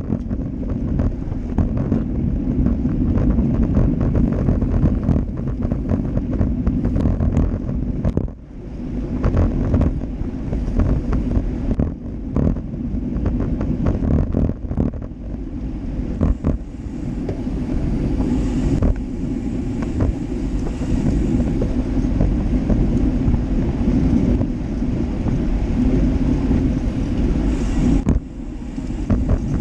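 Wind buffeting the microphone of a GoPro Hero Session mounted on a moving road bike, mixed with road rumble from the bike's vibration. The noise is a loud, steady low rumble with scattered knocks and a short drop in level about eight seconds in.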